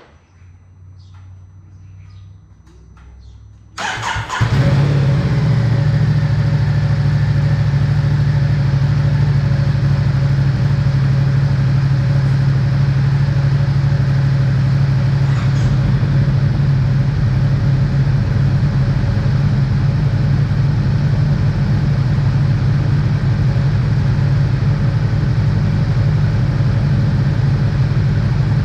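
Two motorcycle engines, a Ducati Diavel 1260's L-twin on its factory exhaust and a Honda CBR500R's parallel twin with a Scorpion slip-on, being started and left idling together. A quieter engine sound first, then an engine catches about four seconds in with a sudden jump in loudness. The combined idle then runs steady and loud.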